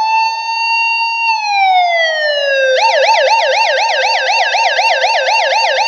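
Electronic emergency siren in a slow wail that holds high, then falls, and about three seconds in switches to a fast yelp of about four up-and-down sweeps a second.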